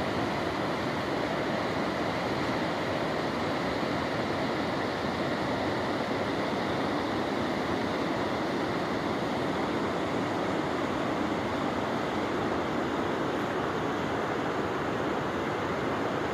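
The Ghizer River rushing, a steady, even roar of fast-flowing mountain river water.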